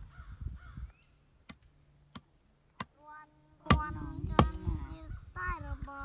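Machete blade striking and shaving a forked wooden slingshot frame against a tree stump: a series of sharp knocks about a second apart, the two loudest in the second half. An animal calls in the background through the second half.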